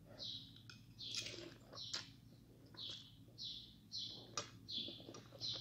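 A person slurping instant noodles: a quick run of short, hissy slurps, about two a second, with a few mouth clicks between them.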